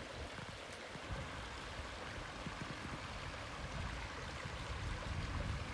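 Small rocky woodland creek running, a steady rush of water over stones.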